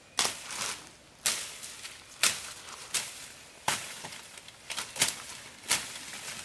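Blade slashing through grass and ferns, about seven sharp cutting strokes roughly a second apart, with leaves rustling between them.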